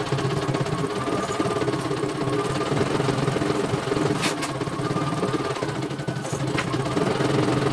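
CNY E900 computerised embroidery machine stitching a design, its needle running at a steady, rapid pace as the hoop moves. A sharp click comes about four seconds in, and a fainter one later.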